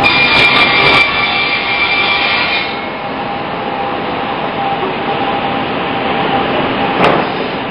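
Sawmill band saw running as it cuts ipe hardwood logs into boards. A steady high whine and dense noise last for about the first three seconds, then the saw runs on quieter and steadier. There is one sharp knock near the end.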